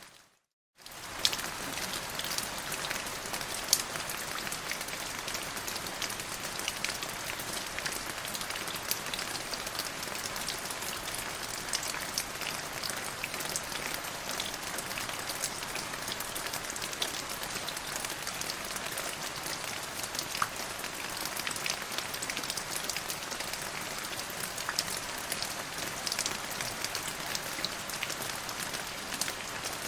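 Steady rain falling on a surface, an even hiss dotted with many sharp drop ticks. It cuts out for under a second just after the start, then comes back and runs on steadily.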